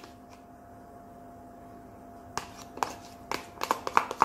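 A spoon clicking and scraping against a plastic tub as sliced bacon is scooped out: quiet for about two seconds, then a run of short, sharp clicks. A faint steady hum lies underneath.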